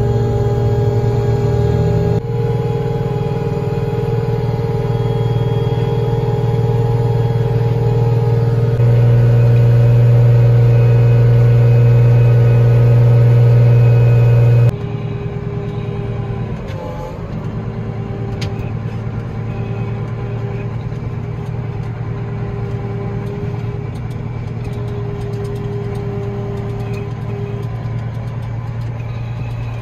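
Case IH Magnum tractor's diesel engine running steadily under load while it drives the Meyer forage wagon's unloading gear to dump corn silage; it steps up louder about nine seconds in. About fifteen seconds in it cuts to the quieter, steady engine and road noise heard inside the tractor cab while driving.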